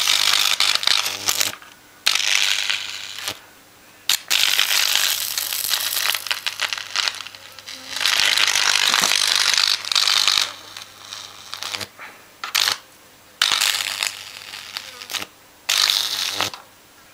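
High-voltage arc from a microwave oven transformer burning across a Dell motherboard's components. It crackles and sizzles in bursts of one to three seconds, with short pauses between them as the electrode is moved, over a steady low hum.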